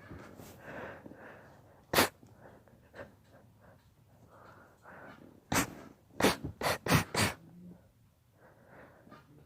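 A sneezing fit: one sharp sneeze about two seconds in, then a rapid run of about five sneezes in under two seconds past the middle, with breathy inhales between them.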